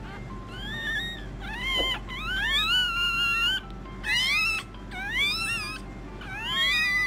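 Two newborn puppies crying with high-pitched squeals, about six calls in a row, each rising in pitch and then holding briefly.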